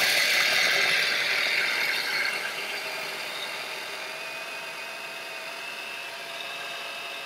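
Small electric mini food chopper running steadily with its motor whining as it chops basil, garlic and lemon into pesto. It is louder for the first two seconds, then settles slightly quieter and steady.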